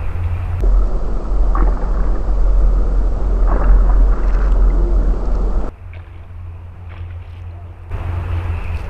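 Low wind rumble buffeting the microphone, with a couple of brief water splashes from a snakehead striking at the lure.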